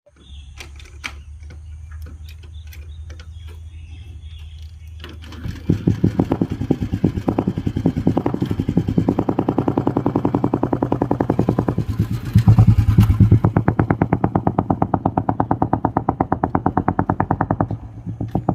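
Old Royal Enfield Bullet's single-cylinder engine running with its evenly spaced exhaust thump. A low hum for the first five seconds, then the pulsing comes in loud, swells briefly about twelve seconds in, and settles back to a steady beat.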